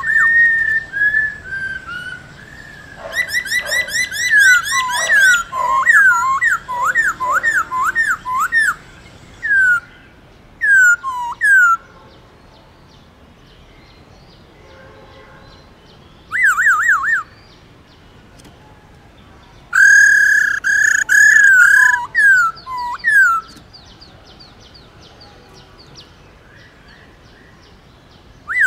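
Black-throated laughingthrush singing: loud bouts of rapid whistled notes that swoop up and down, packed close for the first dozen seconds, then shorter phrases with pauses of a few seconds between them.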